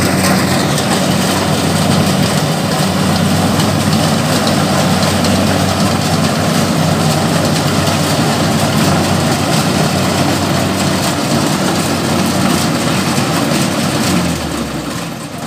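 Kubota DC-70 rice combine harvester's diesel engine and threshing machinery running steadily under load as it cuts through standing rice. Near the end the engine note drops and the machine gets quieter.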